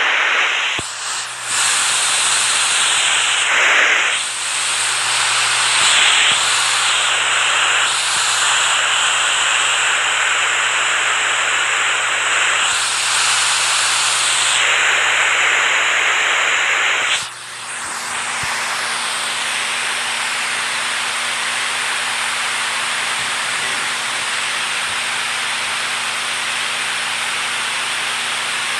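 Rushing water, a dense steady hiss that swells and eases several times. About 17 seconds in it cuts abruptly to a different, steadier rush of water.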